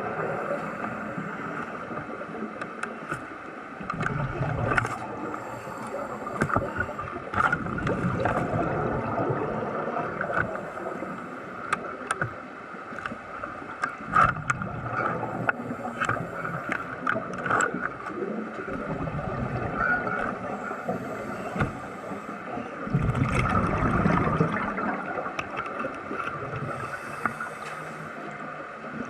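Underwater bubbling and gurgling with scattered clicks and crackles, swelling in bursts and loudest about three-quarters of the way through.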